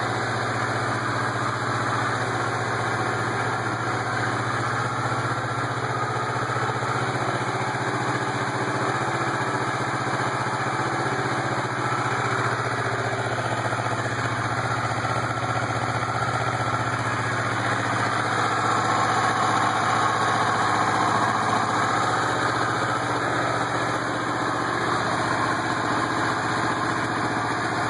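Motorcycle engine idling steadily through a loud aftermarket exhaust, the level rising slightly around two-thirds of the way through.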